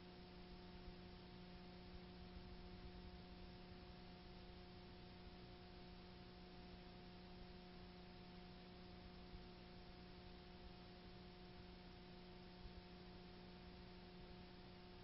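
Near silence: a faint steady hum with a few held tones over a soft hiss, unchanging throughout.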